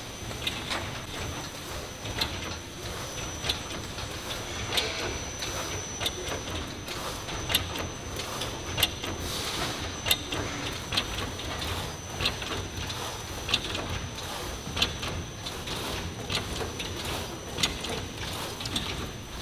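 Plastic bag-making machine running: a steady mechanical hum with a thin high whine, and a sharp clack repeating about every second and a quarter.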